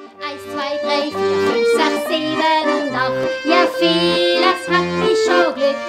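Accordion music: a melody over a steady alternation of low bass notes.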